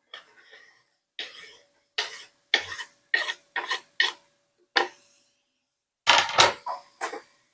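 A utensil scraping and knocking in a series of short, irregular strokes, with a quicker flurry near the end, as chopped red pepper is pushed into a pan of browning sausage.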